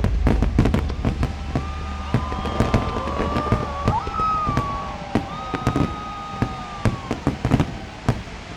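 New Year fireworks going off: a rapid run of sharp bangs and crackles, with long held tones sounding over them through the middle, the bangs thinning out near the end.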